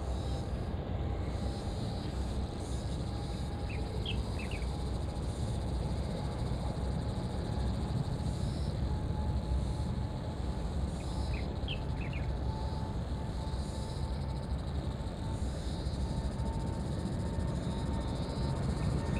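Boeing 777-300ER's GE90 jet engines at takeoff thrust during the takeoff roll. A steady distant rumble slowly grows louder, with a faint whine rising slightly in pitch.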